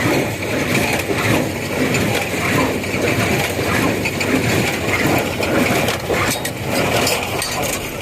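New Holland 275 square baler working, a dense crunching and clattering as hay is picked up and packed, with many short metallic clicks.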